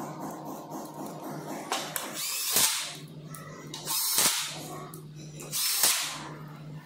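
Cordless drill-driver running in three short bursts of about half a second each, driving screws into the scooter's metal deck cover plate. Each burst ends in a sharp click.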